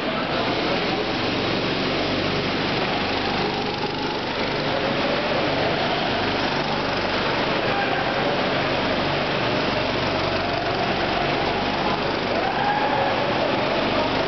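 Several hire go-kart engines running together in an indoor hall, a dense steady drone. Their engine notes rise and fall as the karts speed up and slow down around the track.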